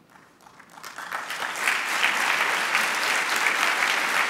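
Large audience applauding, the clapping swelling up from quiet over the first second or two and then holding steady.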